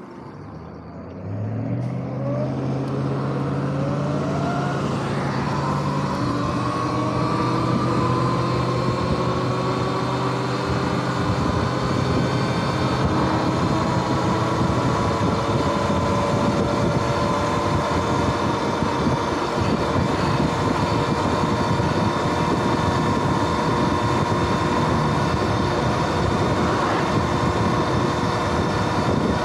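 Sur-Ron X electric dirt bike's motor and drivetrain whining as the bike pulls away from a stop about a second and a half in. The whine rises steadily in pitch for several seconds, then holds steady at cruising speed under wind and tyre noise.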